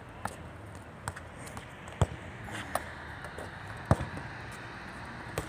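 Sharp thuds of a football being played on stone paving: two strong impacts about two seconds apart, the second the loudest, with lighter taps between over a steady low background hum.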